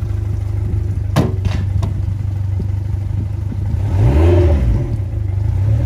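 Yamaha 115 outboard motor idling on flushing muffs while its shifting is tested: a single clunk about a second in, as of the gearcase going into gear, and a brief rise and fall in engine speed about four seconds in.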